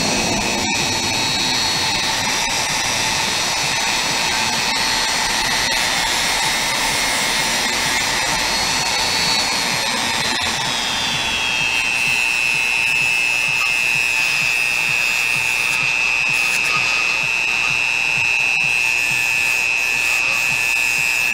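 Small hand-held rotary tool with a wheel running against a tablet's circuit board, a steady high whine over a hiss; about halfway through the whine drops in pitch and holds at the lower note.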